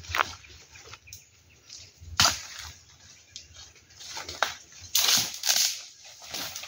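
Rustling of leaves and undergrowth and snapping twigs as someone moves through a bamboo thicket, with a single sharp crack about two seconds in and a longer brushing rustle about five seconds in.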